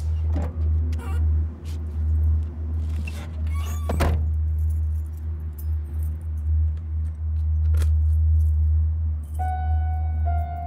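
Car keys jangling and clicking, then a car door shutting with a thunk about four seconds in, over a low droning film score; a ringing tone enters near the end.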